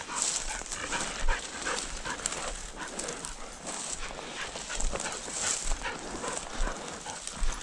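A hunting dog whining and yipping in short repeated cries, with dry brush rustling as someone pushes through tall weeds.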